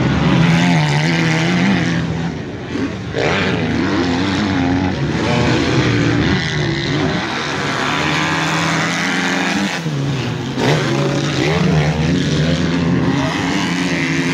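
Several motocross bikes out on a dirt track, their engines revving up and dropping back as they shift, with the notes of more than one bike overlapping.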